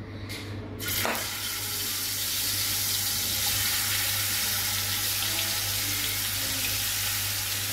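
Yogurt-marinated chicken pieces sizzling in hot oil in a frying pan as they are laid in. The sizzle starts suddenly about a second in and then runs as a steady hiss.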